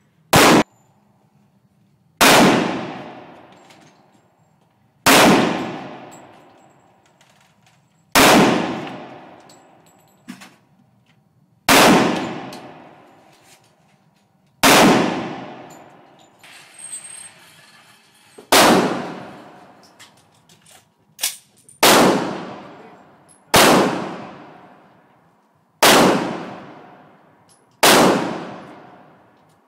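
Gunshots fired one at a time at a slow, steady pace: about eleven shots, two to four seconds apart, each followed by a long ringing tail.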